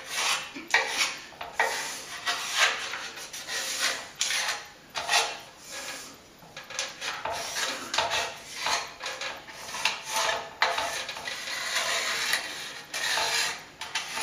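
A pencil scratching along the edge of a plaster ceiling panel onto a painted plaster ceiling, in many short, irregular strokes, as the panel's outline is traced.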